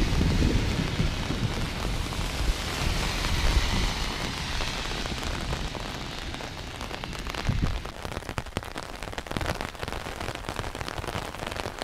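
Steady rain, with a low rumble of wind on the microphone for the first several seconds. From about eight seconds in, raindrops patter irregularly on an umbrella overhead.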